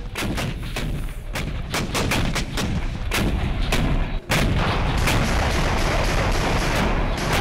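Automatic rifle gunfire: a string of separate sharp shots in irregular succession, then, after a brief break about four seconds in, dense continuous firing.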